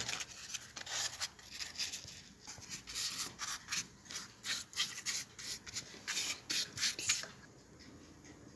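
Dry, thin yuxa flatbread sheets rustling as a hand handles them and presses them into a baking pan: a dense run of quick, scratchy strokes that stops about seven seconds in.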